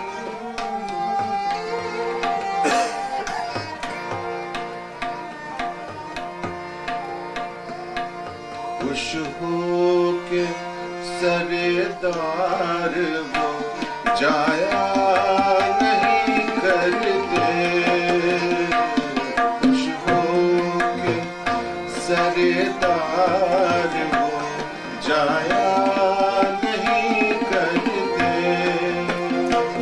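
Harmonium and tabla playing together: held, reedy harmonium notes over a running tabla rhythm, getting louder about halfway through.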